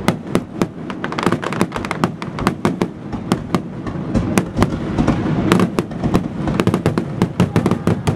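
Aerial firework shells bursting in quick succession: a dense run of booms and sharp crackling reports, several a second, over a continuous low rumble.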